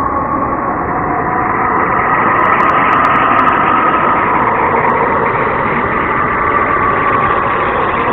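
Synthesized 'space sound' ambience: a steady, dense noise drone with a brighter hum-like band in the middle, growing slightly louder and brighter over the first few seconds.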